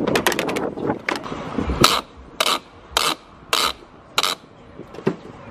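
Gas pump nozzle clattering as it is hung back in the pump's holder. Then the car's fuel cap is screwed on, its ratchet clicking five times, about every half second.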